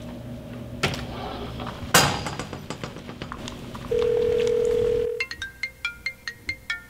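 A steady background hum with a sharp knock about two seconds in, then one loud steady tone held for about a second. After that a smartphone alarm plays a quick tune of short high notes, about five a second.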